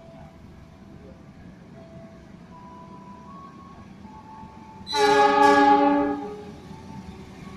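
Horn of an approaching CC 206 diesel-electric locomotive, sounding one loud blast of about a second and a half, starting about five seconds in, over a low steady background rumble.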